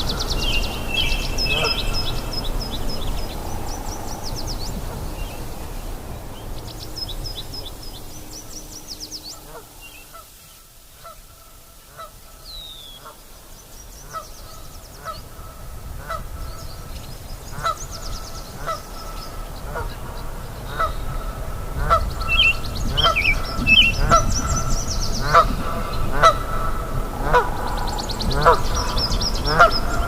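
Nyamang calling along a river, a steady series of short repeated calls that grows denser and louder in the second half, answered by birds chirping and trilling above them. A low rushing of river water sits underneath, loudest at the start and the end.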